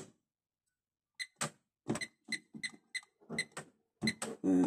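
A quick, even run of about a dozen short clicking beeps, roughly three to four a second, starting about a second in: the touch controls of a glass-top cooktop being pressed repeatedly, as when setting a cooking time or power level.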